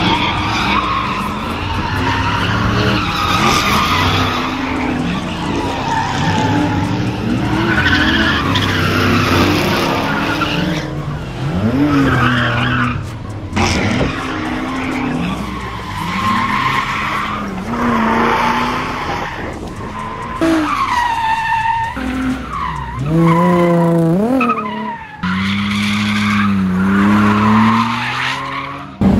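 Drift cars' engines revving hard, the pitch climbing and dropping with throttle and shifts, over tyres squealing as the cars slide. The sound breaks off and changes abruptly several times, like a string of separate passes.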